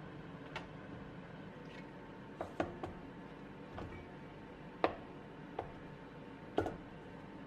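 Grilled zucchini slices and an enamel tray being handled over a metal mixing bowl: about eight light knocks and taps at uneven intervals, the loudest about five and six and a half seconds in, over a steady low room hum.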